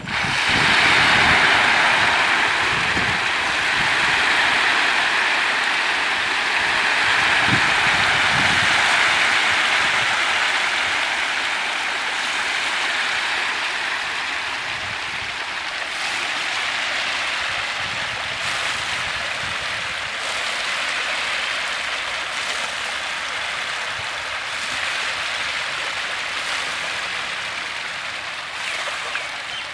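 Hundreds of catfish thrashing and splashing at the surface of a crowded pond in a feeding frenzy as feed is scattered onto them: a steady, rain-like hiss of countless small splashes. It starts suddenly as the first handful lands, is loudest for the first several seconds, then eases a little.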